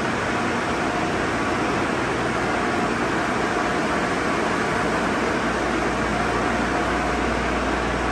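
Conveyor car wash drying system's blower units running: a steady rush of air.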